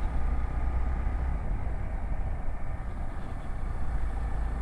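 Steady low rumble of a Hero XPulse 200 motorcycle ride, engine and wind on the microphone, with a constant buzz of insects behind it.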